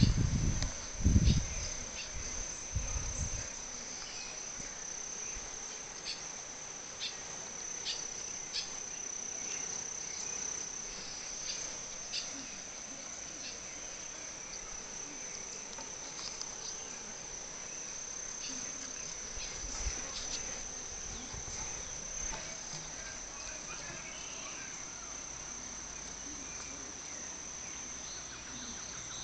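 Steady, high-pitched insect chorus droning without a break, with scattered short clicks through the first half. A few low thumps sound in the first three seconds.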